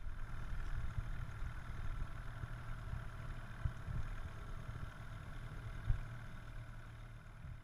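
Small boat's outboard motor running steadily while towing a dugout canoe, with a steady hum and a higher whine over it. A brief knock about six seconds in.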